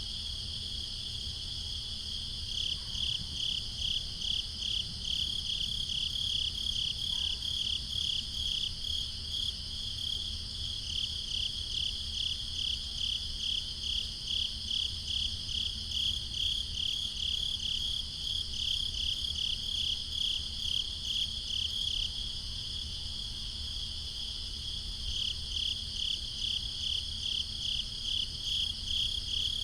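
Crickets chirping: one loud cricket pulses about three chirps a second, stopping briefly a few times, over a steady higher trill from other crickets.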